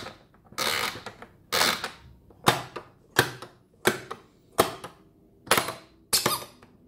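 Plastic pop-up doors of a Fisher-Price Monster pop-up baby toy being pushed shut by hand and latching. They make about eight sharp plastic clacks, one every second or less.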